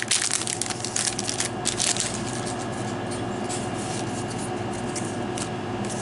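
Foil booster-pack wrapper crinkling and tearing as a Magic: The Gathering Modern Masters 2017 pack is ripped open, busiest in the first two seconds. After that it settles to soft rustling with a few light clicks as the cards are handled.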